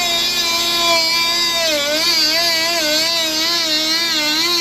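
Oscillating multi-tool running with a steady buzzing whine, its pitch dipping and recovering over and over from about two seconds in as the blade bites into a cut.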